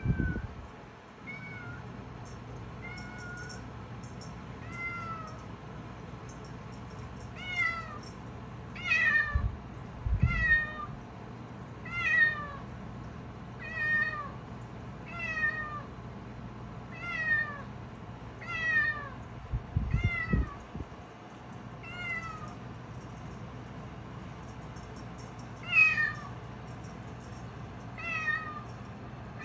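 Black kitten mewing over and over, short high falling mews about every second and a half, faint at first and louder from about seven seconds in.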